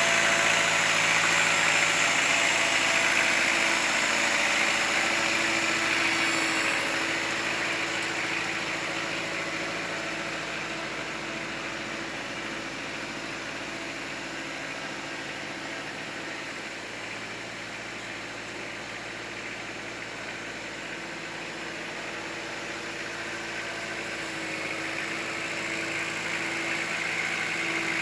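Kubota L4600 tractor's diesel engine running steadily. It is louder at first, eases down through the middle and builds again near the end.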